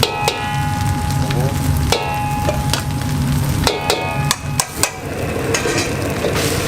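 Fried rice being stir-fried in a pan: a steady sizzle over a low rumble, with a metal spatula scraping and clanking against the pan. A few of the clanks ring briefly, near the start, about two seconds in and about four seconds in.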